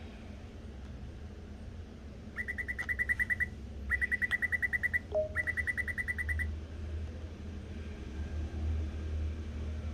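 The special sound effect of a commemorative EasyCard played by the card reader on tapping: three bursts of rapid, high electronic chirps, each about a second long, with a short lower blip between the second and third. A steady low hum runs underneath.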